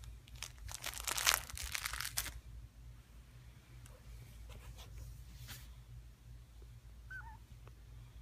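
Crinkly material rustling and crumpling for about two seconds as the kittens play, then scattered small rustles and a faint, short kitten mew near the end. A steady low hum runs underneath.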